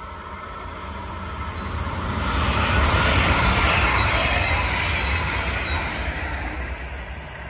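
Red double-deck regional passenger train passing at speed: a rushing rumble of wheels on rails grows louder, peaks about three to four seconds in, then fades as the train moves away.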